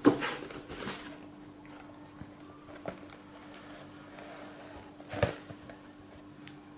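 Small cardboard boxes being handled: a sharp knock as a box is pulled from the outer carton, a couple of quick scraping rustles, then quieter handling with light clicks and another cardboard scrape about five seconds in.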